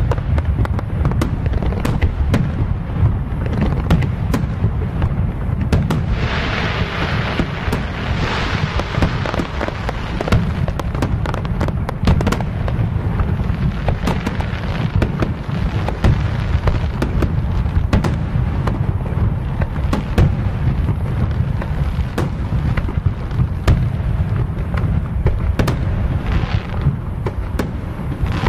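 Fireworks display: a dense, continuous barrage of aerial shell bursts, rapid bangs over a steady low rumble, with a brighter hissing stretch about six to nine seconds in and another briefly near the end.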